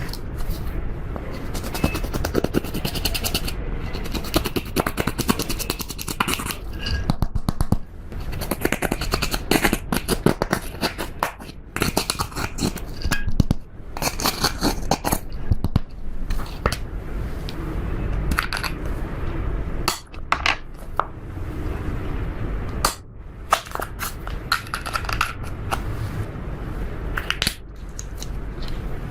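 Slime being kneaded and stretched by hand, making a dense run of sticky clicks, crackles and squelches with a few short pauses.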